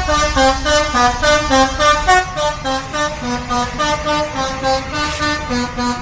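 A truck's telolet musical horn playing a quick melody of short, stepping notes, over a low engine rumble.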